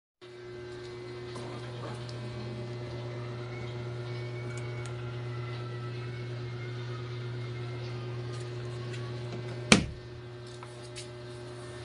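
Mini washing machine's electric motor running with a steady low hum. About ten seconds in there is a single sharp click, and the hum goes on a little quieter after it.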